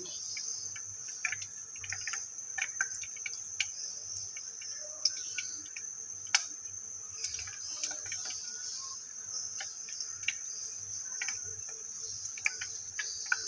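Besan pakora batter frying in a pot of hot oil: a steady high sizzle with scattered crackles and pops as more spoonfuls of batter go in.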